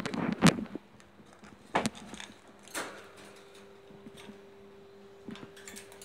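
Clicks, knocks and light rattles from a rose-ringed parakeet clambering from a wooden perch onto a wire cage top. A cluster of knocks comes in the first half second, the loudest about half a second in, with single ones near two and three seconds in and small ticks after, over a faint steady hum.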